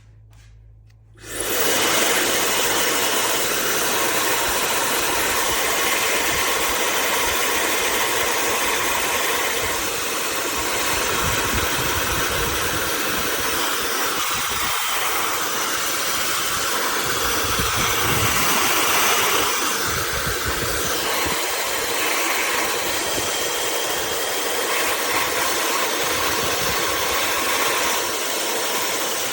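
OSOU high-speed hair dryer switched on about a second in and then blowing steadily: a loud, even rush of air.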